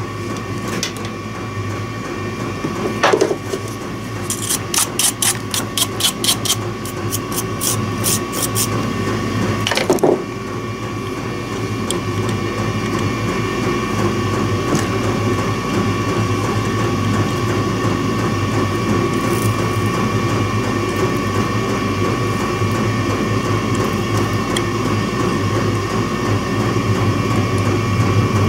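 Steady machine hum with a thin high whine. A quick run of light clicks comes about four to nine seconds in, with a sharp knock about three seconds in and another about ten seconds in.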